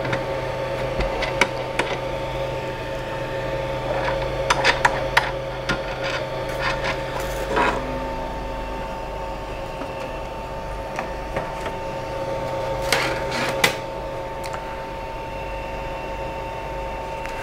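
Scattered plastic clicks, knocks and rubbing as the resin vat is slid out of a Creality LD-001 resin 3D printer and the build plate is handled. The knocks cluster about four to five seconds in and again near thirteen seconds, over a steady hum with a couple of fixed tones.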